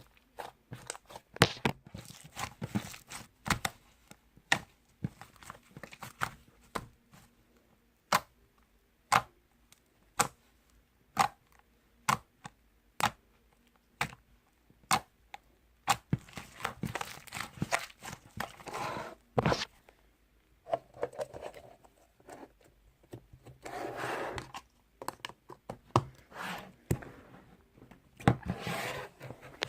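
Close-up ASMR handling sounds: a run of sharp knocks and taps, about one or two a second, then longer stretches of tearing and crinkling.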